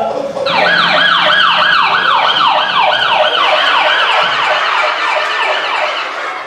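A siren sound effect: a rapidly repeating falling wail, about three sweeps a second. It starts about half a second in and fades near the end.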